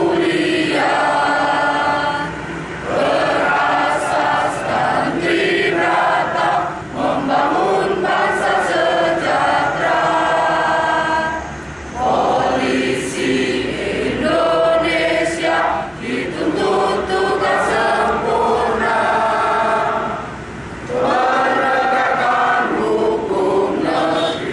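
Choir singing, in sung phrases of a few seconds each with short breaks between them.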